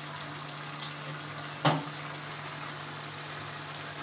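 Chicken and pumpkin curry simmering in a pan over a low flame, a steady sizzling hiss over a low steady hum. A single sharp knock about a second and a half in.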